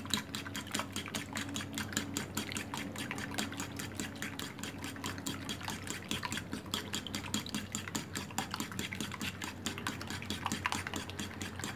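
Fork whisking raw eggs in a ceramic plate, the tines clinking against the plate in a quick, steady rhythm.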